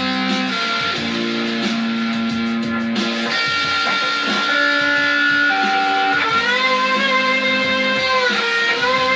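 Instrumental music led by guitar, playing held notes over a steady low pulse, with a note bent upward about six seconds in and again near the end.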